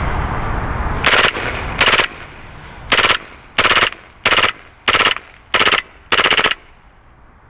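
WE G35 airsoft gas blowback pistol firing on full auto: eight short bursts of rapid shots, each a fraction of a second long, the last one a little longer.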